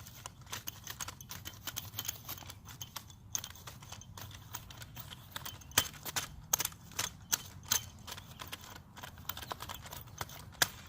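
Irregular clicks and crunches of soil being broken up and loosened to make a seed bed for grass seed over a bare lawn patch.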